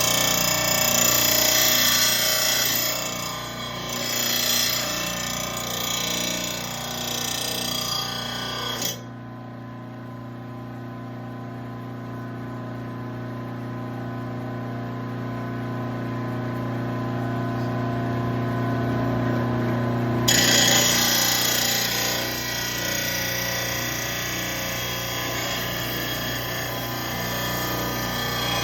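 Electric mower-blade sharpener running: a steel mower blade grinds against it for about nine seconds, then the motor spins free with a steady hum, and the blade grinds again from about twenty seconds in until near the end.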